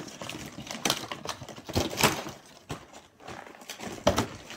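Clear plastic packaging crinkling and clacking as it is handled and pulled open, with sharp clicks about one second in, two seconds in and near the end.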